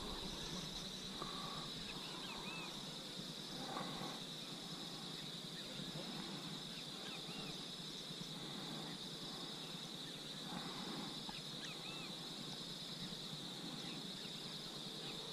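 Faint evening insect chorus, a steady high trill, with brief chirps now and then.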